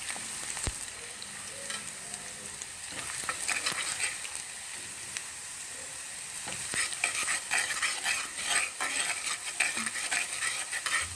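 Batter-coated cauliflower florets deep-frying in hot oil on a low flame: a steady sizzle with crackling that grows busier about three seconds in and again from about seven seconds on, as the florets are nearly done.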